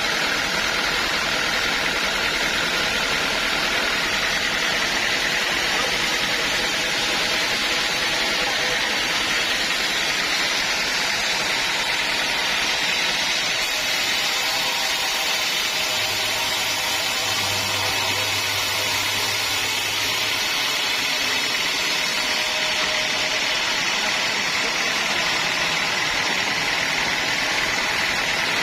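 Sawmill machinery running steadily: an even, unbroken mechanical noise with no pauses or separate strokes.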